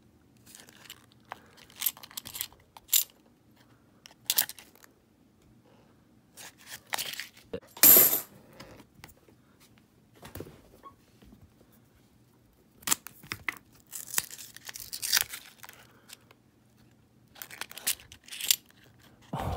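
Paper coin rolls of half dollars being torn open and the coins handled: scattered bursts of paper tearing and rustling with small clicks of coins, the loudest burst about eight seconds in.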